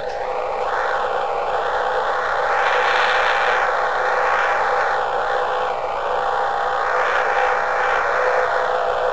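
Radio receiver static from a radio-astronomy receiver listening for Jupiter's radio emissions: a steady band of hiss that slowly swells and fades, with two faint steady tones running underneath.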